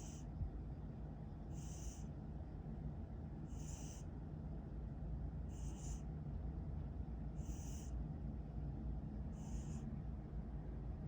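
Sleeping cat snoring: a short, high, breathy snore about every two seconds, in a steady rhythm, over a low steady rumble.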